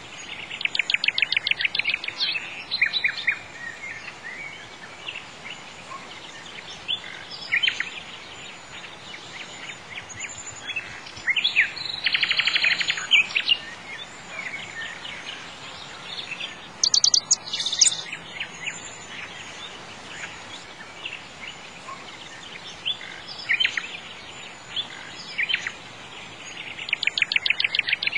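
Songbirds singing: rapid trills of quick high notes every several seconds, with scattered single chirps between them over a faint steady hiss.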